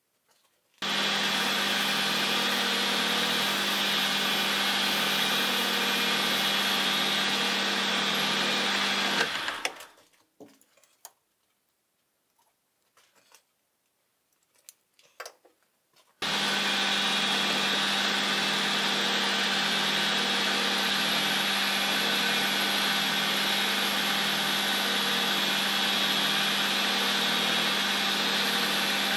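Metal lathe running with a steady mechanical hum, its four-jaw chuck spinning a turned metal part. It starts about a second in, stops around nine seconds, and after a few light clicks and knocks starts again about sixteen seconds in and keeps running.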